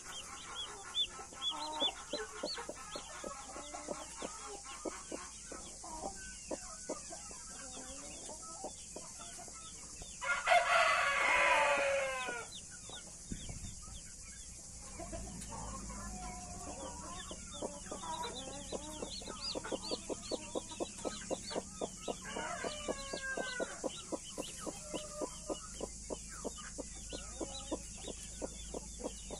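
Australorp and Brahma chicks peeping in a rapid run of short, high chirps, with a rooster crowing once, loud and about two seconds long, roughly a third of the way in.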